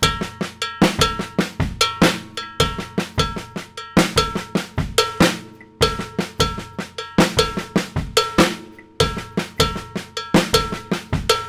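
Drum kit playing a Latin-funk groove slowly, bar after bar: a cowbell ringing over bass drum and accented snare backbeats in a linear pattern, with the kick and cowbell split apart before beat four (kick, bell, snare).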